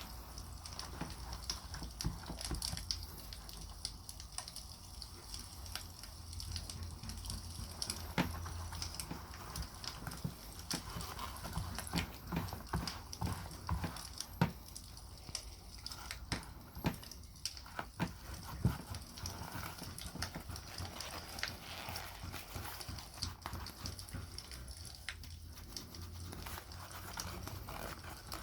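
Wood campfire crackling, with irregular sharp pops and snaps over a steady low rumble of the flames.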